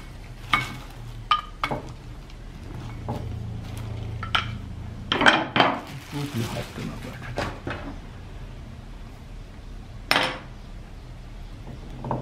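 Scattered knocks and light clinks of pottery tools being handled and set down on a worktable, with a cluster of louder knocks about five seconds in, over a low steady hum.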